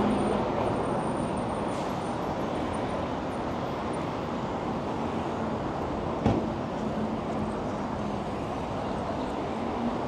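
City street ambience: a steady wash of traffic and street noise with a faint low hum, and one sharp knock about six seconds in.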